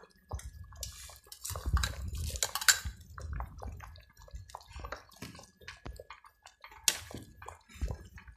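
Thick rice porridge bubbling in a metal pot with irregular plops and pops, while a metal ladle stirs through it and knocks against the pot; busiest about two seconds in, with a sharp clink near the end.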